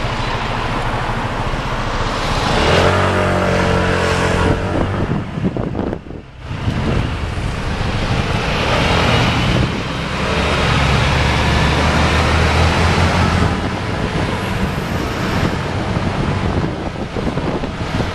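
Street traffic: vehicle engines running close by in slow-moving traffic. A heavier engine note swells about three seconds in and again from about ten to thirteen seconds.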